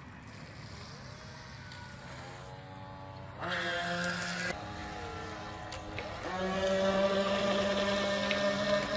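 Electric motors of small radio-controlled model boats whining as they speed off across the water. The whine comes in about two seconds in and steps up louder twice, around three and a half and six seconds in.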